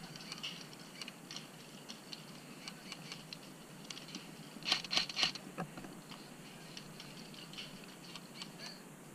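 Airsoft gunfire: scattered sharp clicks and snaps of airsoft guns firing, with a quick burst of three or four louder snaps about five seconds in.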